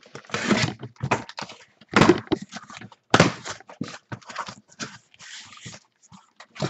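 Blade slicing the packing tape on a cardboard shipping case, then the cardboard flaps being pulled open and the boxes inside dragged out: a run of irregular scrapes, rips and knocks, loudest in the first half.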